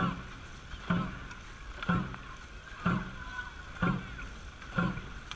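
Dragon boat crew paddling in time at about one stroke a second, each stroke marked by a short shouted call and the splash of the paddles, over the steady rush of water past the hull.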